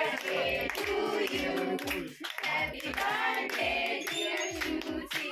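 A group of women and children singing a birthday song together, with handclaps keeping time, while the cake is cut.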